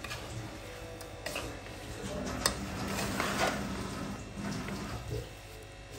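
Perforated metal skimmer stirring and scraping through a thick dal, ghee and sugar mixture in a large aluminium karahi, clinking against the pan now and then. The sharpest clink comes about halfway through.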